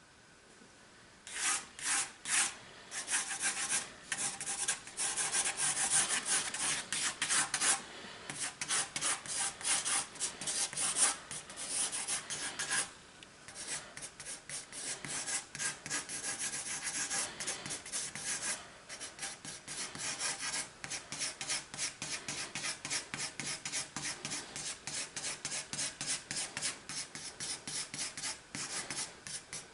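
Pencil scribbling rapid looping shading strokes on sketchbook paper: a scratchy rubbing of several strokes a second that starts about a second in and pauses briefly a couple of times.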